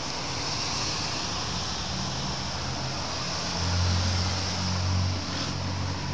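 Street traffic noise with a motor vehicle passing. Its low engine hum swells about three and a half seconds in and fades after about five seconds.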